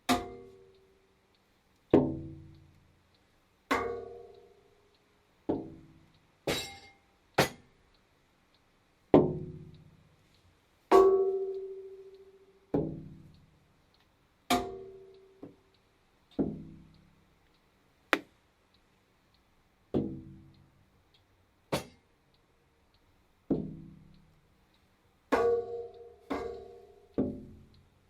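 Kitchen objects knocked or set down one at a time, about one every two seconds: dull knocks that each ring briefly and fade, some with a clear ringing tone, mixed with a few short sharp clicks.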